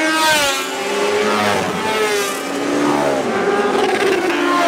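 Sport motorcycles passing one after another at speed, each engine's note dropping in pitch as it goes by.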